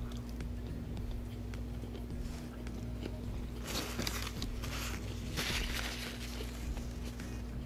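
Close-miked chewing of a mouthful of burger with small wet clicks, then two rustling bursts of a paper napkin wiping the mouth, about four and five and a half seconds in. A steady low hum runs underneath.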